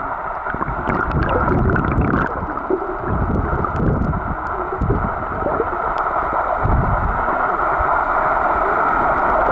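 Water heard underwater in shallow surf: a steady hiss of churning water and sand, with several low muffled surges and a few faint clicks in the first couple of seconds.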